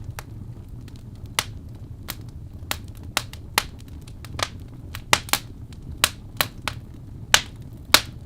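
Wood fire crackling in a fireplace: sharp, irregular pops and snaps from the burning logs over a low, steady rumble of the flames.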